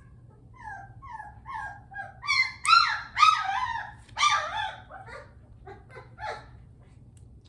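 A three-week-old Bernese Mountain Dog puppy crying, upset, in a string of short high whines that fall in pitch. They grow to loud squeals in the middle and then taper off.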